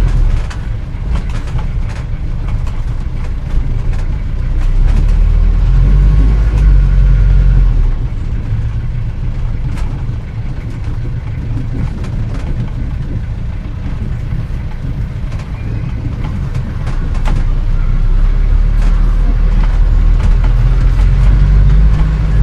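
A 1940-era car being driven, its engine running with a steady low rumble that grows louder about four seconds in, eases off around eight seconds, and swells again from about seventeen seconds. Scattered light clicks come and go over the engine sound.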